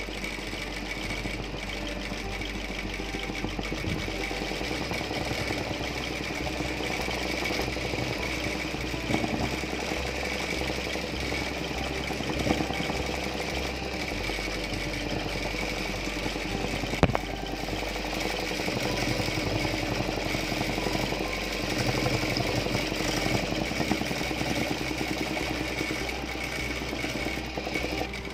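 Household sewing machine running steadily, its needle stitching an embroidery fill through fabric stretched in a hoop, with one sharp click a little past halfway.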